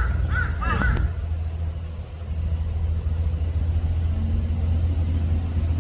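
A vehicle engine running steadily with a low rumble, a slightly higher hum joining about four seconds in. In the first second a few short, high, arching animal calls sound over it.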